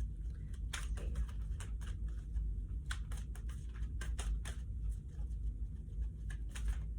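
Handling noise: irregular light clicks and taps over a steady low hum.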